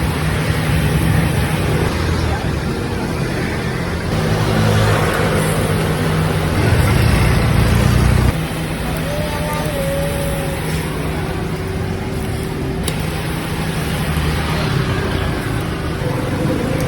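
Street traffic with a nearby motor vehicle engine running as a steady low hum. The engine sound drops suddenly about eight seconds in and carries on more quietly.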